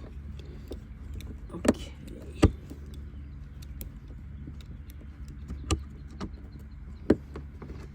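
A few sharp, separate clicks and taps of hand tools working on the trailer's shore power inlet housing, over a steady low rumble.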